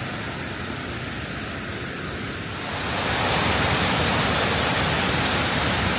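Rushing water of a river's waterfalls, a steady noise that gets louder about three seconds in.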